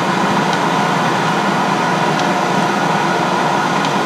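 Hendey tool-and-gear lathe running steadily under power with its gear covers off. It makes a loud, even whir, with a hum and a higher whine and a few faint ticks.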